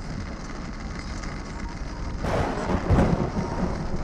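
Steady rain and road noise heard from inside a moving car, then about two seconds in a sudden close thunderclap: a sharp crack that turns into a deep rumble, loudest about a second later and fading.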